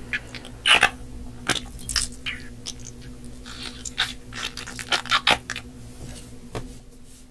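Squishy mesh stress ball being squeezed and pressed by hand, its gel-filled bulges pushing through the netting: an irregular run of short wet squelches and clicks.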